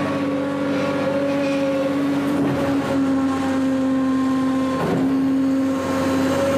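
Garbage truck running with its rear compactor working: a steady machine drone with a strong whining tone, which dips slightly in pitch about three seconds in. The truck is being run in.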